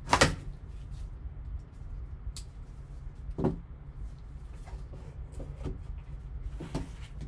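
A cardboard trading-card box being opened and its insert lifted out by hand. There is a sharp knock or click about a quarter second in, another about three and a half seconds in and a third near the end, with faint ticks of cardboard handling between them and a low steady hum underneath.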